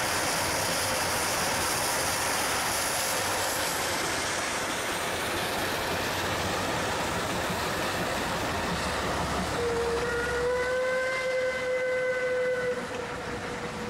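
A double-headed narrow-gauge steam train, a Climax geared locomotive and an NA-class tank engine, passes close by with loud steam hissing, then its carriages roll past. About ten seconds in, a steam whistle gives one long, steady blast of about three seconds.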